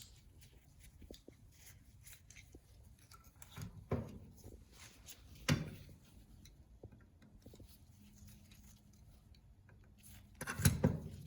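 Small clicks and knocks of parts and tools being handled while a carburetor is taken apart, with three louder knocks: about four seconds in, about five and a half seconds in, and a cluster near the end.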